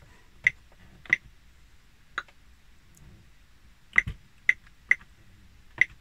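Keys being typed one at a time on an Oric-1 computer keyboard, about seven short sharp clicks at an uneven typing pace, two of them close together about four seconds in.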